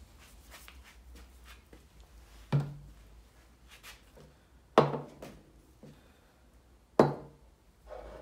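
Bottles of engine flush set down one after another on a wooden tabletop: three sharp knocks with a dull thud, about two seconds apart, among lighter handling clicks.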